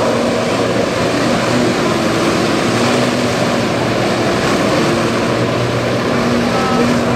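Engine running steadily under a loud, even rushing noise, with a low hum that fades in and out.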